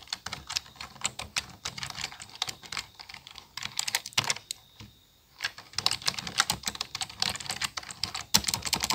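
Fast typing on a computer keyboard, a dense run of key clicks with a pause of about a second near the middle.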